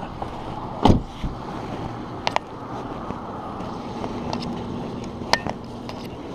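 Steady vehicle rumble with one loud thump about a second in and a few sharp clicks later.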